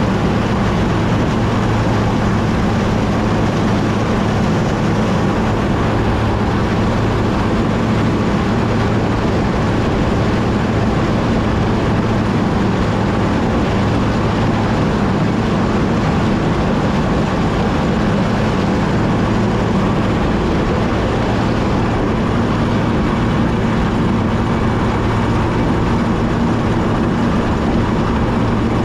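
Combine harvester running steadily while harvesting corn: a constant engine drone with a low, even hum under the noise of the machine.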